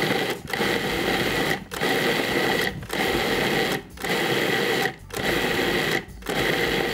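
Cuisinart food processor pulsed on and off in runs of about a second with short stops between, its motor whining as the S-blade chops walnuts and dates.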